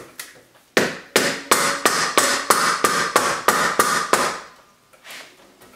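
Claw hammer striking a block of wood held against a black stove pipe's rim, knocking the pipe into place. About eleven blows, roughly three a second, starting about a second in, each with a brief ring.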